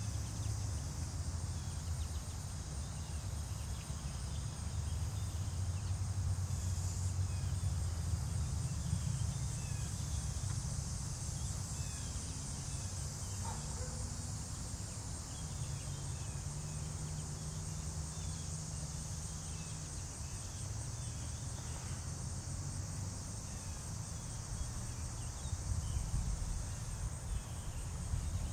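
Steady high-pitched chorus of crickets trilling, over a low rumble.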